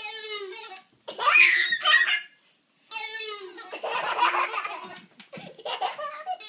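A toddler girl laughing hard in about four high-pitched bursts, the loudest about a second in.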